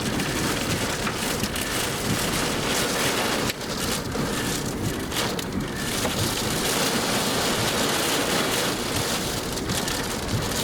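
Heavy rain, mixed with scattered hail, pelting a vehicle's roof and windshield during a supercell thunderstorm: a dense, steady patter of many small hits.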